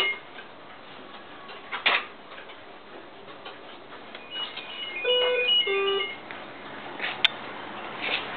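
Clocks sounding: a short tune of clear, stepped notes plays about five seconds in, with a sharp click near two seconds and a few faint ticks near the end.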